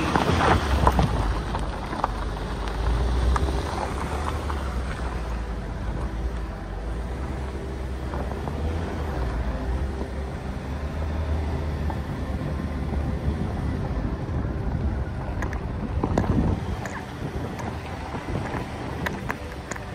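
Vehicle engine and road noise heard from inside the cabin while driving: a steady low rumble with a faint engine drone and occasional small knocks.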